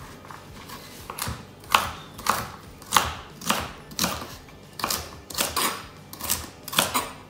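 Chef's knife chopping a celery stick into chunks on a plastic chopping board, a steady run of chops about two a second, starting about a second in.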